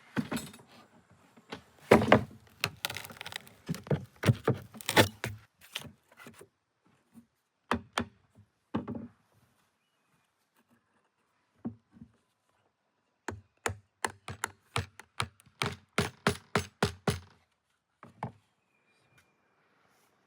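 Hammer blows on wood, part of repairing an old wooden beehive. They come in irregular bursts, then a quicker even run of about four blows a second a little past the middle.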